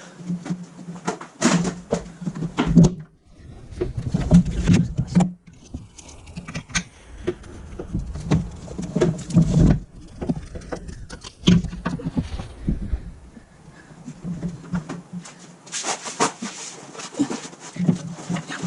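Irregular knocks, taps and clinks of hand tools and metal parts while a starter motor is bolted back onto a Toyota Hilux's engine and gearbox.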